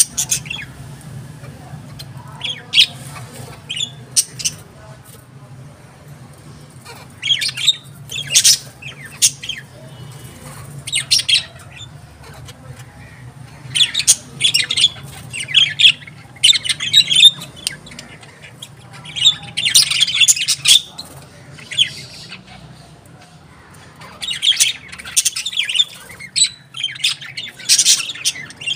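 Birds chirping and squawking in repeated short clusters every few seconds, over a steady low hum.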